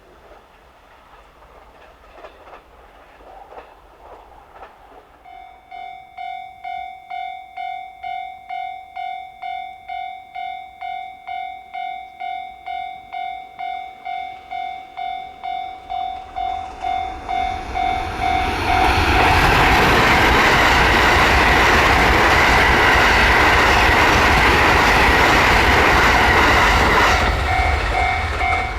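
Japanese level-crossing warning bell ringing, an electronic ding repeating about twice a second, starting about five seconds in. About eighteen seconds in a train passes over the crossing. It is the loudest sound for about nine seconds and drowns out the bell, which is heard again near the end.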